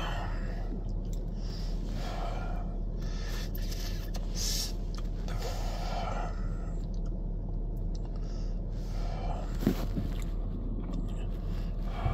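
A man breathing heavily: about half a dozen audible breaths in and out, a couple of seconds apart, over a steady low hum. One sharp click sounds about ten seconds in.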